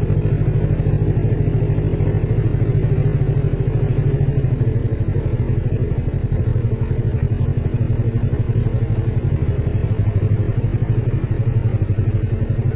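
Motorcycle engine running steadily at a low, even speed, with a fast, regular pulse.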